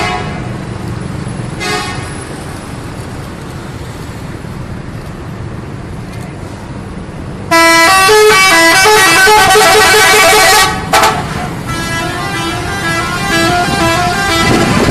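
Bus 'telolet' musical air horn playing a fast tune of stepped notes over the low rumble of road traffic. A short toot comes early, then about halfway through a loud run of the tune for some three seconds, a brief toot, and a softer run of the tune to the end.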